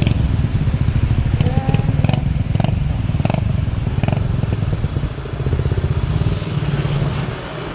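Small motorcycle engine running at low speed through traffic, heard from the rider's seat, with a few light clicks in the first half; the engine eases off near the end.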